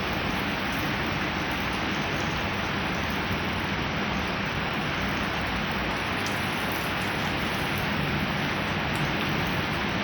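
Thunderstorm downpour driven by strong wind gusts: a steady, even rush of rain and wind.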